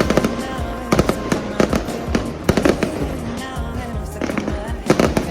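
Aerial fireworks going off, a string of sharp bangs at irregular intervals, several in quick pairs, with background music playing under them.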